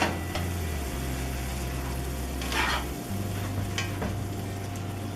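Ground beef and sloppy Joe sauce sizzling in a frying pan while being stirred, with a sharp knock against the pan at the start and a few short scraping strokes of the utensil.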